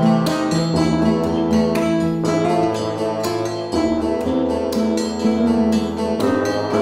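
Background music: a quick run of plucked notes over held bass notes.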